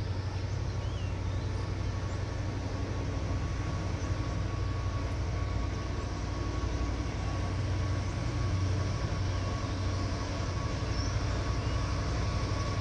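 Diesel locomotive of a freight train pulling out past the camera, with a steady low engine drone and a faint steady whine above it.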